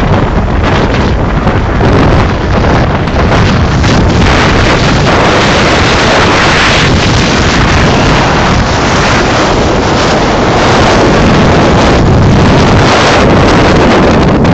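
Strong wind blowing across the microphone, a loud steady rushing noise with no pitched engine tone in it.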